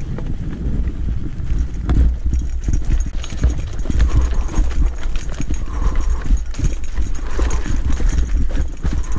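Gravel bike clattering over a loose rocky fire road: tyres crunching on stones and the bike rattling with rapid, irregular knocks, denser after about three seconds as the track turns rocky, over a steady low rumble.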